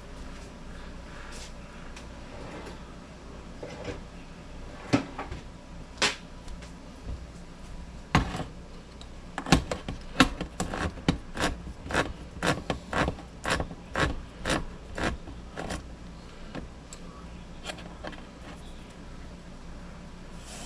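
Handheld manual can opener cutting around a tin can's lid: a few separate sharp clicks, then a regular run of clicks at about two to three a second as the crank key is turned, stopping a little past the middle.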